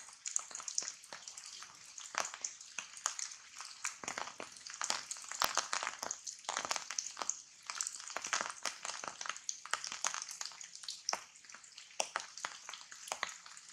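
Rain falling on tree leaves: a steady high hiss with many irregular drops pattering and ticking on the foliage.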